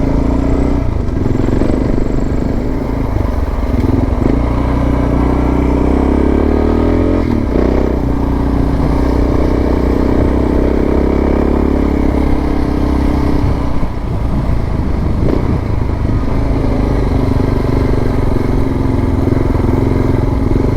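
Suzuki DR650's single-cylinder four-stroke engine running steadily on the move. The engine note rises and falls a couple of times as the revs change, with a small dip about fourteen seconds in.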